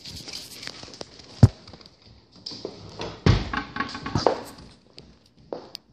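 Handheld camera being carried while walking, with rustling handling noise and footsteps. A sharp thump about a second and a half in is the loudest sound, and a second heavy knock comes a little after three seconds.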